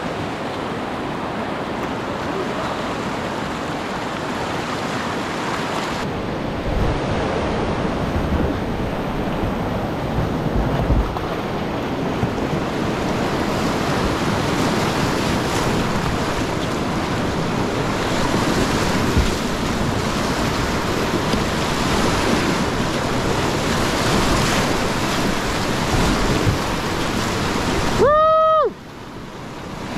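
Fast whitewater rushing and splashing around a kayak in a steep creek rapid, with wind buffeting the action-camera microphone. About 28 seconds in, a short pitched tone rises and falls, and the rush goes briefly muffled and quieter.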